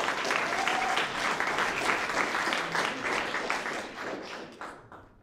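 An audience applauding, the clapping thinning and dying away near the end.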